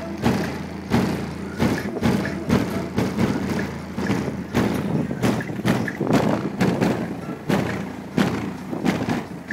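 Bass-heavy music played very loud through a car's subwoofer system: deep steady bass with heavy thumping hits about twice a second.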